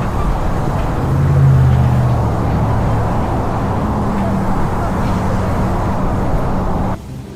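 A motor running with a loud, dense rumble and a steady low hum; it cuts off suddenly near the end.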